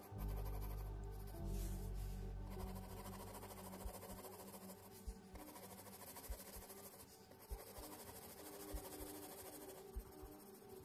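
Mechanical pencil shading on sketch paper: the graphite rubbing back and forth across the page in a soft, continuous scratch, over quiet background music.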